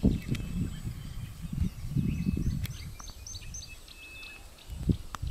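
Birds chirping in many short, quick notes, with one higher held note heard now and then, over an uneven low rumble of wind buffeting the microphone.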